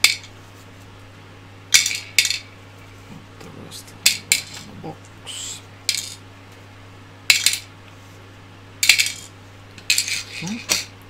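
Small 10 mm steel screws clinking against each other and the hard desktop as they are picked out of a pile by hand: about a dozen short, sharp clinks at uneven intervals.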